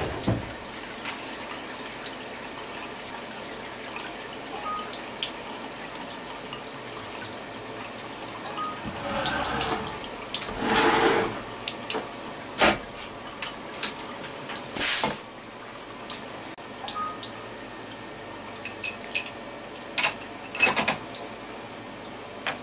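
Coolant trickling and dripping onto a CNC mill's vise and table around a freshly machined aluminium block, over a faint steady machine hum. From about halfway on come a few sharp knocks and clicks as the block is handled in the vise.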